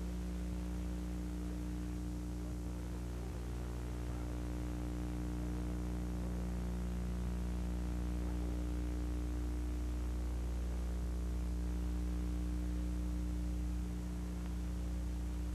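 Steady electrical mains hum with a faint hiss: noise from an old analogue video recording, with no other sound.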